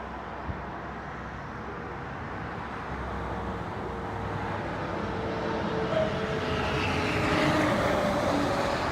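Distant engine drone that swells slowly louder, peaking near the end, with a faint tone gliding slowly downward, like a vehicle or aircraft passing.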